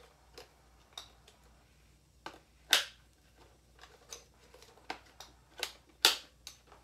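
Sharp plastic clicks and knocks from a Pyle PMB591 megaphone's handle and battery compartment as the lid is shut and the grip is worked. The two loudest clicks come about three seconds in and again about six seconds in.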